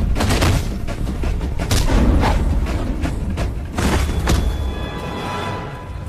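Dramatic action-film background score with a heavy low rumble, cut through by several hard hit sound effects of punches and kicks in a fight scene.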